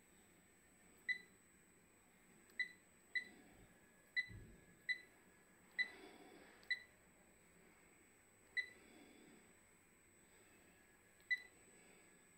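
Key-press beeps from the Delta touchscreen controller of a welding positioner as its on-screen buttons are tapped: nine short, high beeps at uneven intervals.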